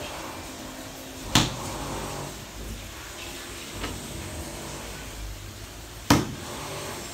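Large ceramic floor tile being set by hand on a mortar bed: two sharp knocks about five seconds apart, with a fainter tap between them, as the tile is tapped down and adjusted. A steady low background noise runs underneath.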